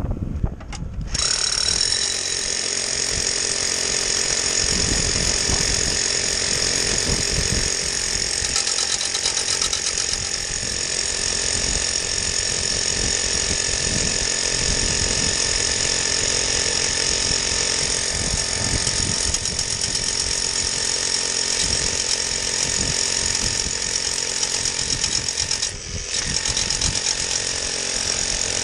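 Big hammer drill boring into concrete for an anchor bolt, a steady rapid hammering that starts about a second in, briefly drops out near the end and picks up again.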